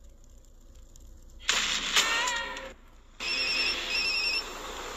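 A telephone ringing with a trilling double ring, starting about three seconds in, after a brief loud burst of noise about a second and a half in.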